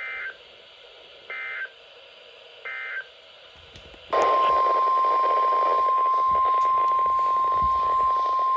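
NOAA Weather Radio's SAME end-of-message code: three short, warbling digital data bursts about a second and a half apart, marking the end of the broadcast warning. About four seconds in, the steady 1050 Hz warning alarm tone comes on loud and holds, over radio hiss, announcing the next warning.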